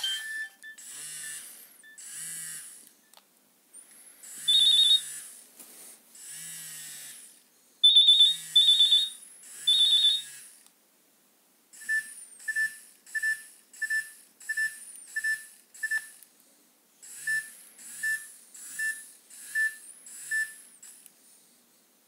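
Nokia 6600 mobile phone playing its built-in ringtones and alert tones one after another through its small loudspeaker: short electronic tunes, then runs of evenly spaced beeps. The loudest is a group of high beeps about eight to ten seconds in, and two runs of beeps, about one and a half a second, fill the second half.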